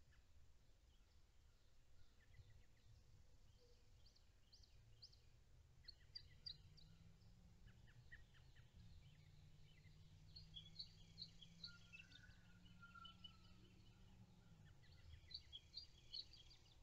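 Faint bird chirps: several quick series of short, high chirps, with one short whistled note a little past the middle. Under them a faint low hum swells in from about a third of the way in and fades out near the end.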